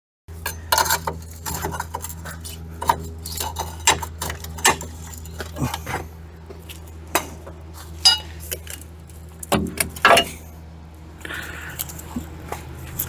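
Metal tools and shock-mounting hardware clinking and clattering as they are handled while a front shock absorber is fitted, a string of sharp irregular clinks over a steady low hum.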